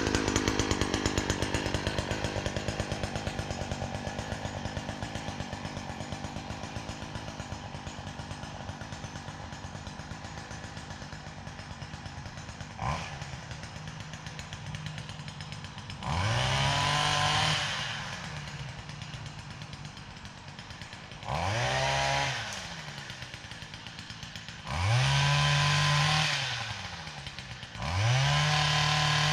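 Small two-stroke engine of a gas pole saw idling, then revved up four times in short bursts a few seconds apart while trimming overhanging tree branches.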